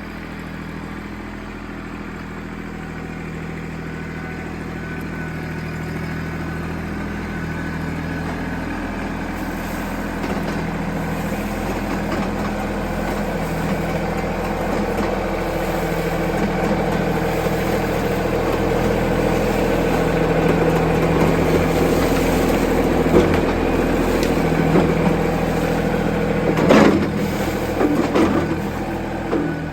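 Tractor engine running steadily and slowly getting louder, with a few sharp knocks near the end.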